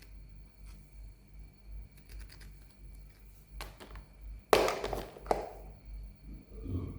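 Toys and packaging being handled: scattered light clicks and taps, a louder knock with a rustle about four and a half seconds in, a sharp tap just after, and a soft thud near the end.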